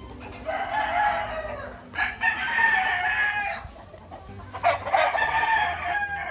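Gamefowl roosters crowing: three long crows one after another.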